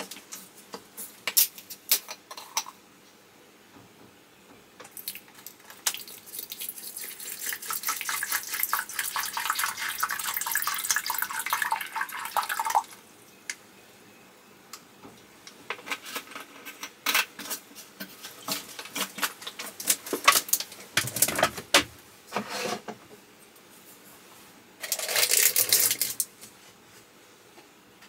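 Water pouring steadily for about seven seconds in the middle, then a second short pour near the end. Around the pours are scattered clicks and knocks of cookware being handled.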